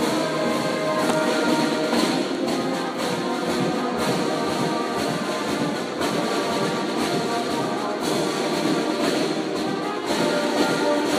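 Marching band of brass horns and drums playing live: held brass notes over the drums.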